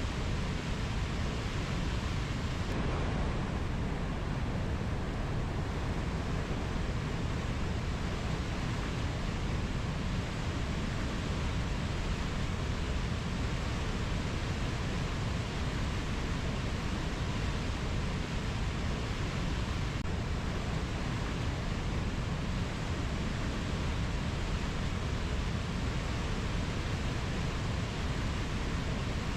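Steady, even rushing noise, strongest in the low end, with no distinct calls, tones or events: a continuous nature-ambience wash.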